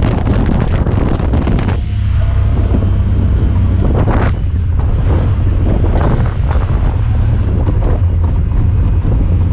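Honda Talon 1000R side-by-side driving off-road, its parallel-twin engine running with a steady low drone under heavy wind noise on the microphone. Scattered knocks and rattles come through.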